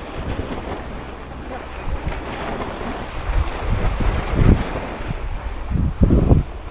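Waves washing against rock breakwater boulders, with wind buffeting the microphone in low rumbling gusts, strongest about two-thirds of the way through and again near the end.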